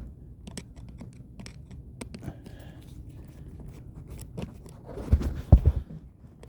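Hand screwdriver backing screws out of a plastic seatbelt trim housing: small clicks and scrapes of the tool and the plastic, with a few louder knocks about five seconds in.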